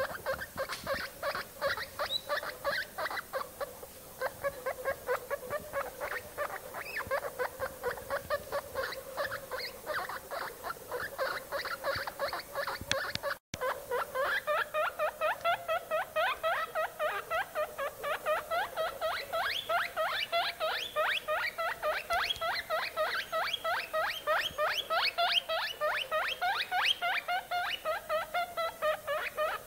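Guinea pig pup squeaking in a long, steady series of short high calls, about three a second, with a brief break about halfway through.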